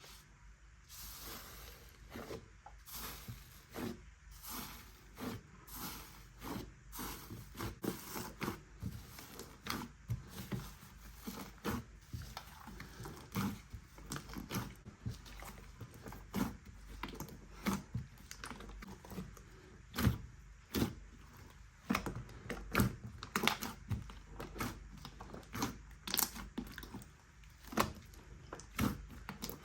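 Slime being handled and squished, giving a run of irregular short clicks and pops that get louder and more frequent from about halfway through.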